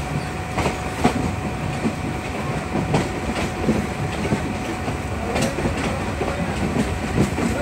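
Train running along the track, heard from on board: a steady rumble of wheels on rail with sharp clacks about every second or so as the wheels cross rail joints.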